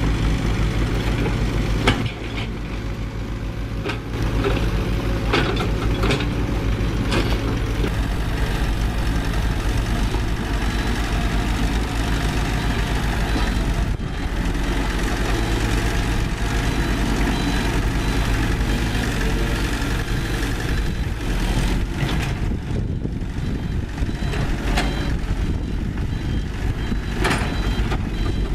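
Diesel engines of heavy construction machinery running steadily, with scattered short knocks and clanks from the machines at work.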